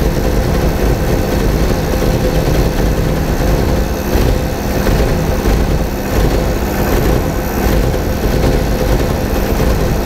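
1987 VW Vanagon engine idling roughly with a misfire, sounding like it is about to stall. The misfire is traced to the ignition coil multi-striking, which the technician takes for the engine computer current-limiting the coil.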